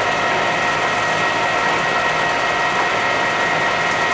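Clausing Colchester 17x80 engine lathe running under power, its headstock and feed gearbox gears giving a steady whine of several pitches over a continuous busy mechanical rattle.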